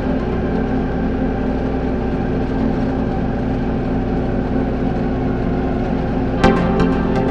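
Ambient background music: a steady, unchanging drone, with one sharp chime-like hit about six and a half seconds in that echoes away in quick repeats.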